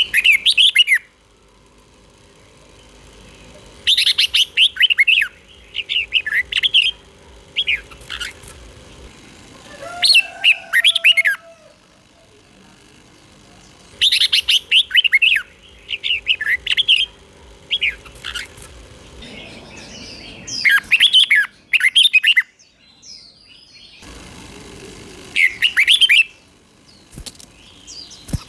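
Red-whiskered bulbul singing: short phrases of rapid warbled notes, repeated every second or two with brief pauses between them.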